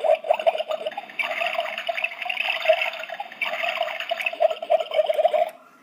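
Hello Kitty toy electric kettle making its bubbling boiling sound, a steady rapid bubbling that cuts off suddenly near the end.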